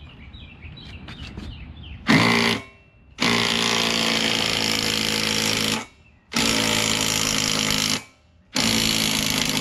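Cordless impact driver hammering in bursts as it tightens the flywheel bolt on a push mower engine. A short burst comes about two seconds in, then three longer bursts of roughly two and a half, one and a half and one and a half seconds.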